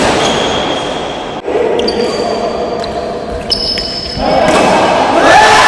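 Badminton rally in an arena: sharp pops of rackets striking the shuttlecock, with short squeaks of court shoes over a crowd murmur. About four seconds in, the crowd breaks into loud cheering.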